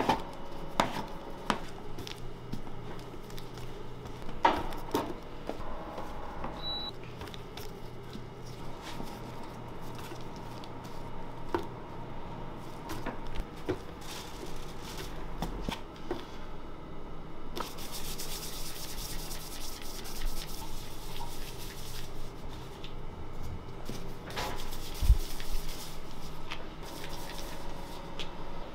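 Plastic dough scraper cutting and scraping soft donut dough on a floured metal tray, with small taps and soft thuds as the dough pieces are handled and set on a scale. A steady hiss joins in for several seconds past the middle, and one louder thump comes near the end.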